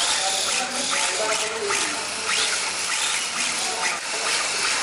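Hand tufting gun running as it shoots yarn into a carpet's backing cloth, a steady mechanical noise.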